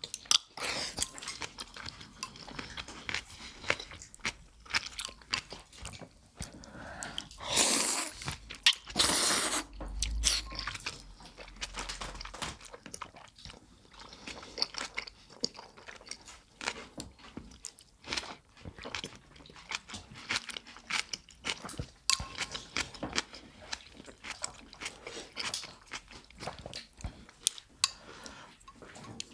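Close-up eating sounds of people eating a bowl of miso udon soup: wet chewing and mouth clicks throughout, with two longer noisy sounds of about a second each about eight and nine seconds in.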